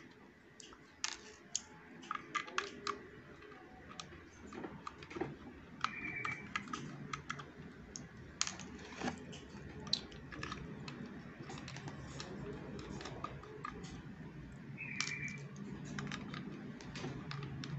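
Small Phillips screwdriver backing tiny screws out of a vape mod's thin plastic housing: scattered light clicks and ticks of metal on plastic, with two brief high squeaks, one about six seconds in and one near the end.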